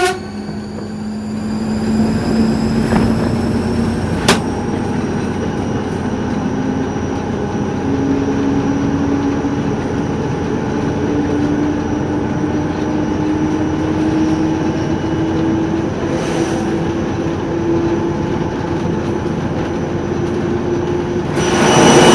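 TEP70 passenger diesel locomotive running under power: steady engine noise with a high turbocharger whistle, both slowly rising in pitch. There is one sharp click about four seconds in.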